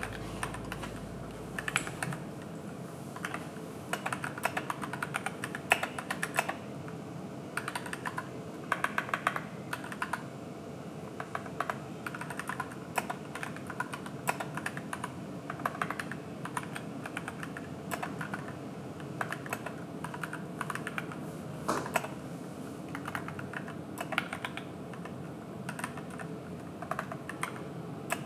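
AKKO 3061S Tokyo R2 mechanical keyboard with yellow switches and PBT keycaps being typed on while it sits on a desk mat: a steady patter of key presses in quick irregular runs, with short pauses between them.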